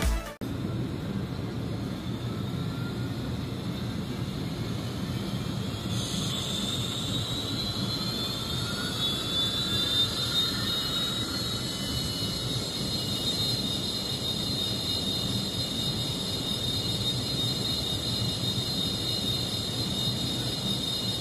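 Gas-turbine start-up sound from the DCC sound decoder of an N-scale United Aircraft gas-turbine train model, part of its pre-departure sequence. A steady low rumble runs throughout; about six seconds in a turbine whine rises in pitch and levels off into a steady high whine.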